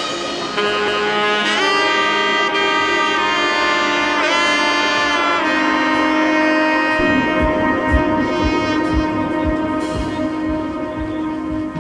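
Background music: a horn-like lead melody of held, bending notes, joined by a steady low drum beat from about seven seconds in.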